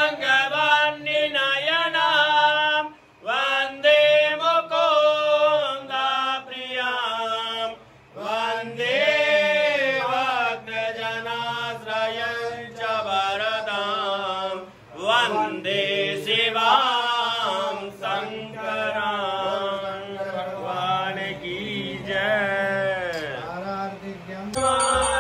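One voice chanting Rudrabhishek mantras to Shiva in long, sung recitation phrases, with short breaks about 3 and 8 seconds in.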